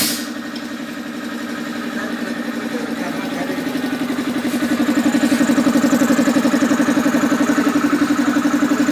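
Air compressor running: a steady hum with a fast, even pulsing that grows louder over the first few seconds, after a short click at the start.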